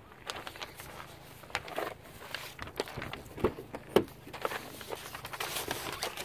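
Footsteps crunching on gravel, uneven and close, with a few sharper knocks and clicks near the middle.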